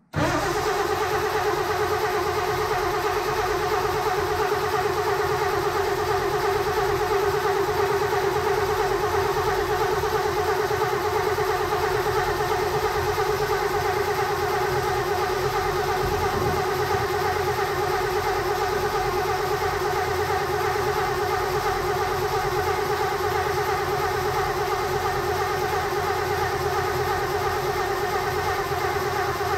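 1937 Terraplane Six's flathead straight-six turned over steadily on its starter motor with the ignition coil removed, so it spins without firing. The cranking starts abruptly and goes on unbroken, drawing fuel up to the carburettor before the first start.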